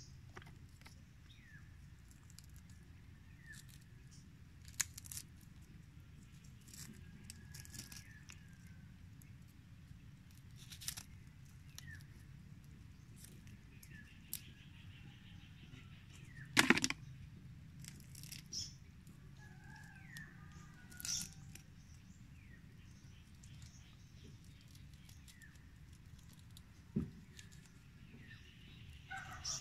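Steady low rumble of wind and surf at the seashore, with scattered small clicks and knocks and one louder knock about halfway through. Faint bird chirps come and go.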